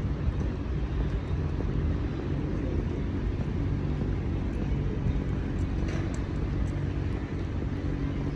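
Street traffic: a steady low rumble of passing vehicle engines.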